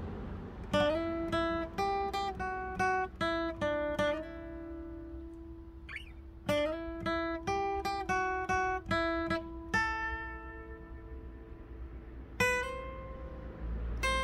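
Acoustic guitar played note by note in a slow melody over a ringing low note, pausing briefly about five seconds in and again after ten seconds.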